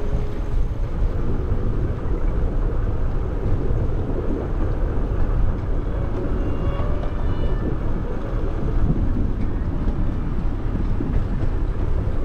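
Wind buffeting the microphone of a camera riding along on a moving bicycle: a steady low rush that never lets up. A few faint short high tones sound about six to seven seconds in.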